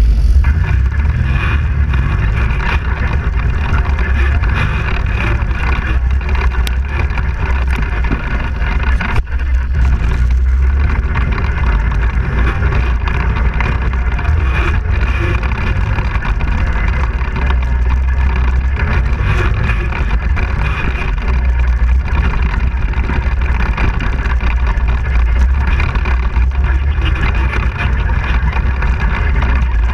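ATV engine running steadily under way over a rough track, heard from the quad itself, with a brief dip in level about nine seconds in.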